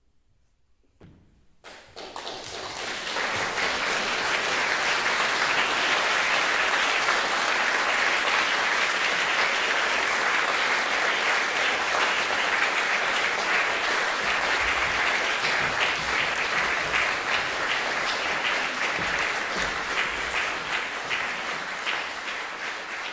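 Audience applauding at the end of a piece. After a held silence the clapping starts about two seconds in, swells quickly, stays steady and begins to thin near the end.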